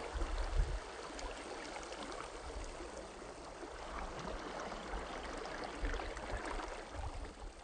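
Faint shallow seawater lapping and trickling among pebbles in a tide pool, a steady soft wash with small ticks and a few low rumbles.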